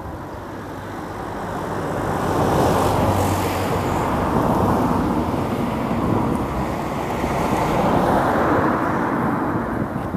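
A passing vehicle: a rushing noise that swells up about two seconds in, holds, eases briefly and swells again.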